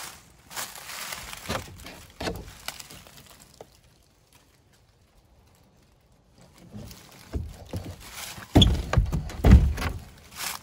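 Plywood shed door with a metal latch being handled: a few light knocks as it opens, a quiet stretch, then heavy deep thuds about two-thirds of the way in as the door is swung shut and latched.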